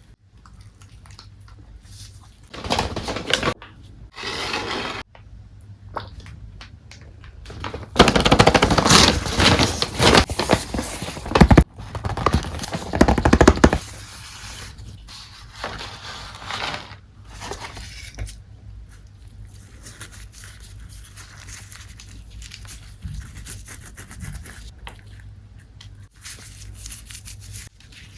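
Close-miked handling sounds of a fried chicken meal: scraping, rubbing and crackling. The loudest part is a long stretch of crackling from about 8 to 14 seconds in, with shorter bursts before it and quieter rustling after.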